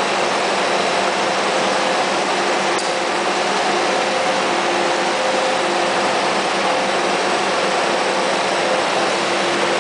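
Plastic molding machine running: a steady mechanical noise with a hum, and a second tone that cuts in and out several times.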